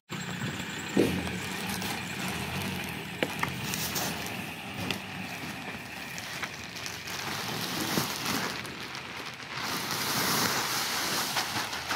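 Black plastic rubbish bags rustling as they are handled and shaken out, with leaves and garden cuttings sliding out into a steel skip. There are a few sharp knocks along the way, and the rustling is loudest near the end as a bag is emptied.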